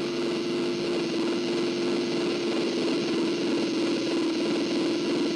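A steady, unbroken drone: a strong held tone over a hiss, with no change in pitch or level.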